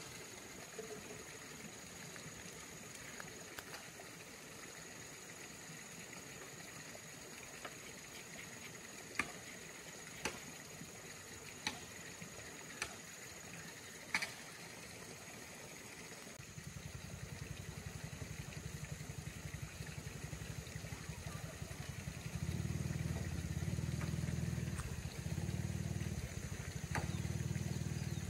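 A few sharp clicks, like a paintbrush knocking on a paint tin, then about halfway in a low, steady engine hum starts and grows louder near the end, with two brief dips.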